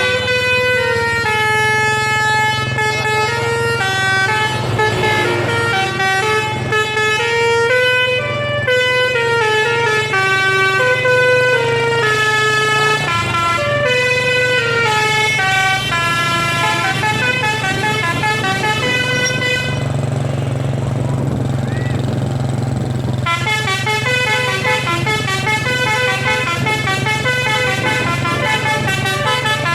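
A bus's Basuri telolet multi-tone air horn playing a long melody of stepping notes over a steady low hum. About two-thirds of the way in, the horn stops for about three seconds, then starts again with quicker notes.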